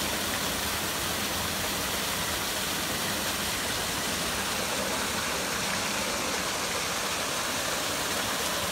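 Waterfall cascading down rock ledges and splashing into a pond: a steady, even rush of falling water.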